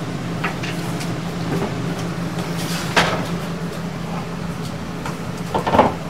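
Steady hum of an air conditioner, with a few knocks: a sharp one about halfway and a short cluster of them near the end.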